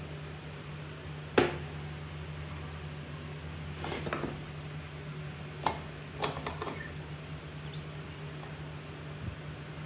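Metal engine parts of a Honda GX120 being handled: a sharp metallic knock about a second and a half in, then scattered lighter clinks and knocks, over a steady low hum.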